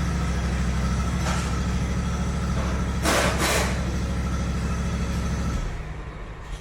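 Electric starter cranking the Snapper zero-turn mower's engine in a steady drone without it catching, then stopping about five and a half seconds in; the engine has spark, so a fuel problem is suspected. A brief hiss comes about three seconds in.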